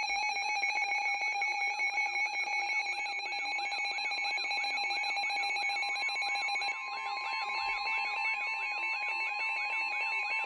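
NOAA Weather Radio receivers sounding their warning alarms for an incoming Flash Flood Warning: a steady, fast-pulsing alarm tone together with a rapid warbling sweep. About two-thirds of the way in the pulsing stops and a steady single warning tone joins the warble.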